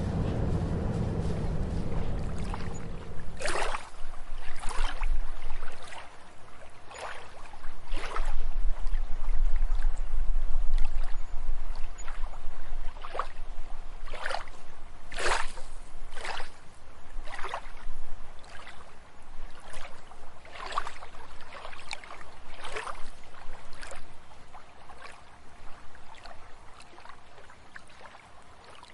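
Water splashing and sloshing in short, irregular swishes, one every second or two, after a low rumble that dies away about three seconds in.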